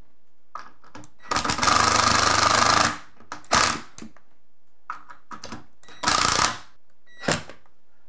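Cordless power driver driving door-hinge screws tight into the jamb: one long run of about a second and a half, then several shorter bursts as each screw is snugged up.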